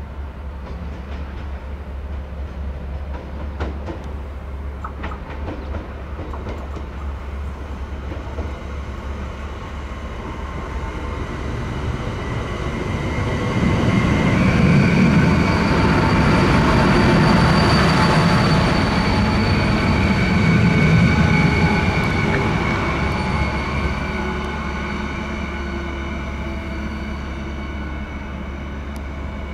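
Stadler WINK bimodal multiple unit passing close by: a rumble of its drive and wheels with several steady whining tones, building up from about ten seconds in, loudest for several seconds around the middle, then fading away.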